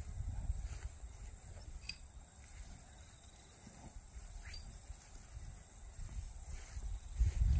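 Rural paddock ambience: a steady high-pitched insect drone with a few short, faint bird chirps, over a low rumble of wind on the microphone that swells at the start and again near the end.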